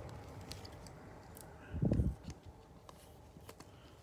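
Gloved hands handling trading cards and thin plastic card sleeves: faint scattered rustles and small clicks as cards are slid into sleeves, with one soft low thump about two seconds in.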